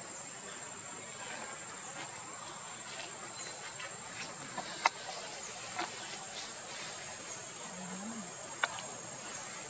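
A steady, high-pitched drone of insects, with three sharp clicks; the loudest comes about five seconds in.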